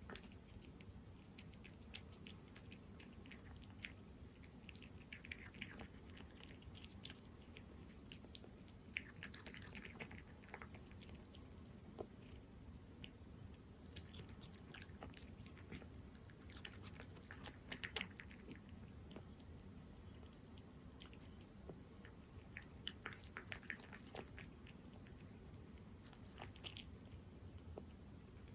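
Cat chewing wet cat food in jelly: soft, irregular wet clicks and smacks, faint throughout.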